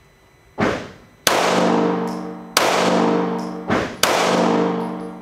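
Five 9mm shots from a Springfield Armory XD9 pistol in an indoor range, fired at uneven intervals. Each is a sharp report, and several are followed by a ringing tone that fades over about a second.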